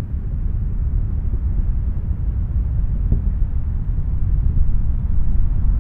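Space Shuttle Atlantis's twin solid rocket boosters and three main engines during ascent, a steady low rumble.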